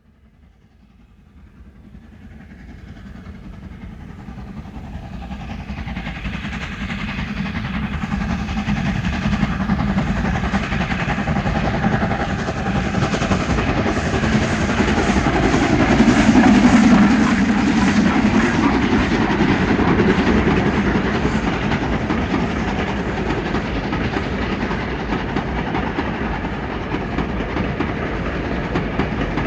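A steam train approaching on the rails, growing steadily louder over about ten seconds to its loudest some seventeen seconds in, then running on at a steady level.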